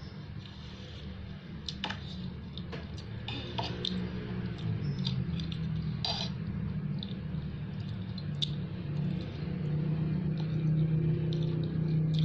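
Close mouth sounds of someone eating noodles: scattered wet smacks and clicks of chewing. A steady low hum runs underneath and is the loudest sound, growing louder near the end.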